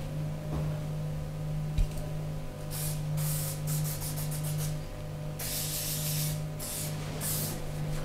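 Spray bottle giving several short hissing sprays, the longest about a second, over a steady low hum. A single sharp tap comes about two seconds in.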